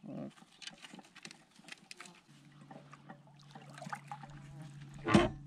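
Small scattered ticks and light knocks around a plastic kayak on calm water, with a steady low hum setting in about two seconds in and one short louder grunt-like sound near the end.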